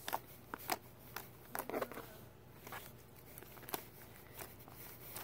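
Slime being squished and pressed by hand for ASMR, making irregular small clicks and pops.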